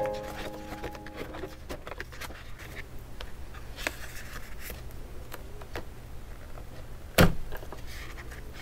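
Pages and a sticker sheet of a ring-binder photobook being handled: soft paper rustles and small scattered clicks, with one sharper, louder knock about seven seconds in. Piano music fades out in the first second or so.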